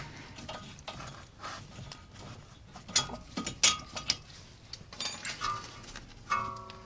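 Front brake caliper being worked loose and lifted off the disc, with scattered metal clicks and knocks from the caliper and tools.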